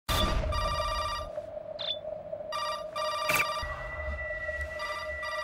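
Bedside corded landline telephone ringing in short electronic bursts, three times about two seconds apart, over a steady hum.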